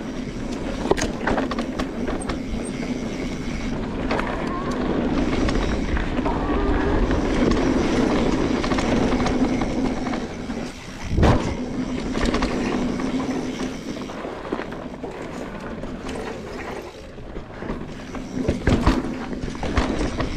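Mountain bike rolling down a dirt trail: steady tyre and riding noise with frequent small knocks from the bike over the ground, and one hard jolt about eleven seconds in.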